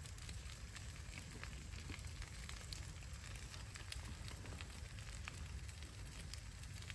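Windrows of cleared brush burning: scattered irregular crackles and pops over a steady low rumble.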